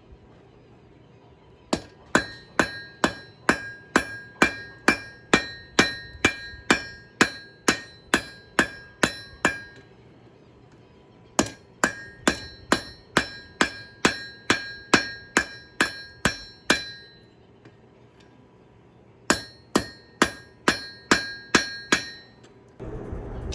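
Hand hammer striking a railroad spike being forged on an anvil, in three runs of steady blows about two a second with short pauses between, each blow ringing. A steady rushing noise starts near the end.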